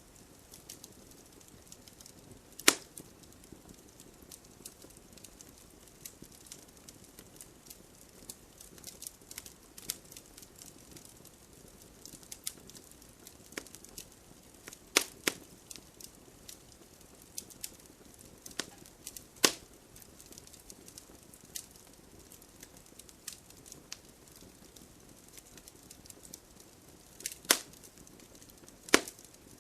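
Wood fire burning in a fireplace: a soft steady hiss with frequent small crackles and a few sharp, loud pops of burning logs.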